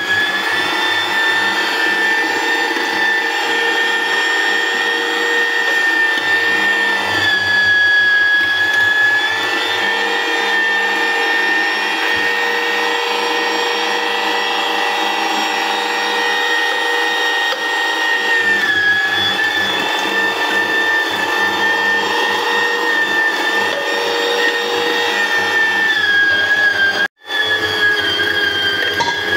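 Electric meat grinder running steadily with a motor whine while meat and onion are fed through it to make mince. The pitch sags slightly a few times, and the sound cuts out for a moment near the end.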